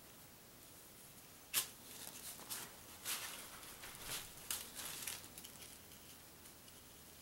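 Faint handling noises: one sharp click about one and a half seconds in, then a few seconds of soft rustling and scraping as a hand reaches across the cloth-covered table and handles the paintbrush and paper tag.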